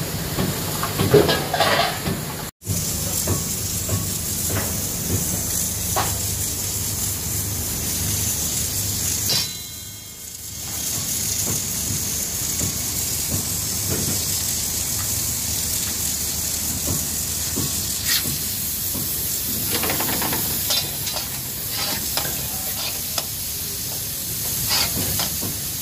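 Lamb chunks sizzling in a karahi, with metal tongs scraping and clicking against the pan as the meat is turned.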